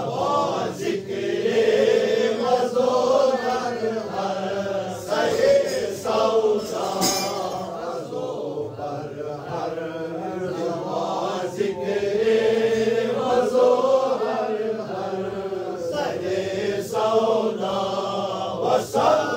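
A group of men chanting together in a slow melody that rises and falls, a Sufi devotional recitation (zikr) sung by the gathering.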